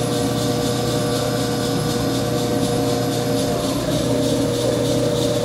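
A Ransome 200P welding positioner's electric power-rotation drive runs steadily as the table turns slowly. It gives an even motor and gear hum with a constant whine.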